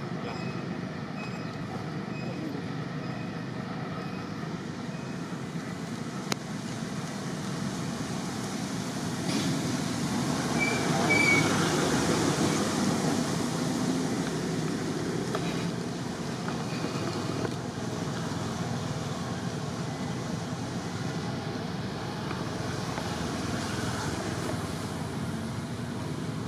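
Steady outdoor background noise with a rumble, like passing traffic. It grows louder for several seconds in the middle, then eases back.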